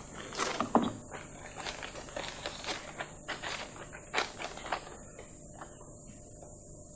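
Scattered light knocks and clicks over the steady hiss of an old film soundtrack, dying away about five seconds in.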